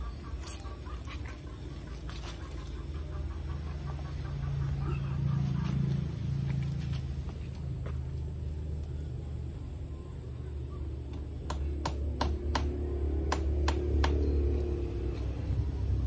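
Low rumble of a vehicle engine, swelling about a third of the way in and again near the end. A quick run of sharp clicks sounds near the end.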